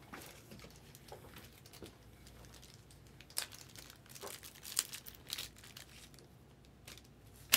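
Foil trading-card pack wrapper crinkling and tearing as a pack is ripped open, in short scattered rustles that bunch up about halfway through, ending with one sharp click.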